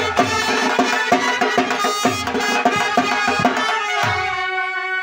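Dhol barrel drums played in a fast beat with sticks and hands, under a reedy wind instrument's melody. The drumming stops about four and a half seconds in, leaving the wind instrument holding its notes.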